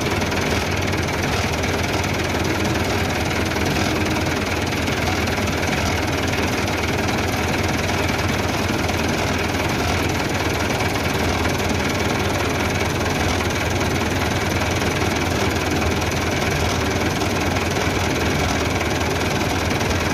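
An engine idling steadily, with a heavy low hum and no change in speed.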